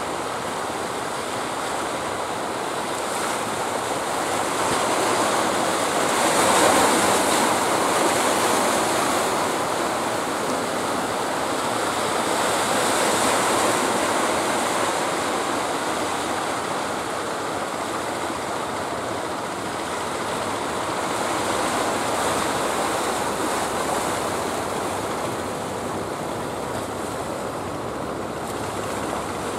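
Sea surf breaking and washing in, swelling louder three times, with wind on the microphone.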